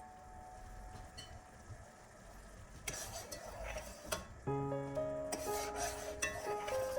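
Background music fades to a quiet tail. About three seconds in comes a second or so of stirring noise in a cooking pan. The music then returns with a melody of held notes.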